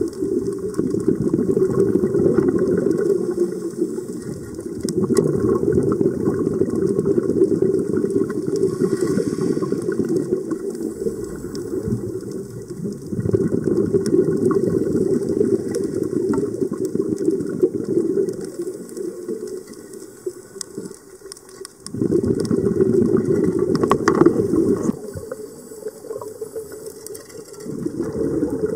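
Scuba diver's exhaled breath bubbling out of the regulator, recorded underwater: a low bubbling rumble that comes in stretches of a few seconds with short quieter lulls between breaths.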